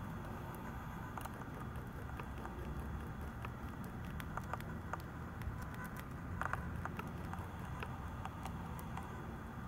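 A pet mouse gnawing at a seed treat stick: quick, irregular tiny clicks and crunches, with a brief denser cluster about six and a half seconds in, over a low steady hum.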